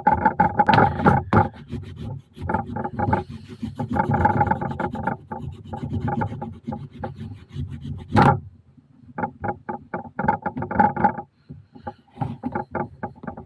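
Wet vegetable-tanned leather being rubbed and pressed by hand around a gun form to wet-form a holster: fast, rough rubbing strokes with a few short pauses. A single sharp, louder scrape comes about eight seconds in.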